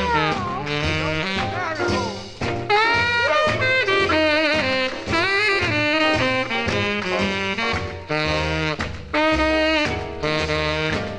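A 1950s rhythm-and-blues record played from a 45 rpm single: a saxophone solo over the band during an instrumental break, with wavering, gliding notes over a steady bass line.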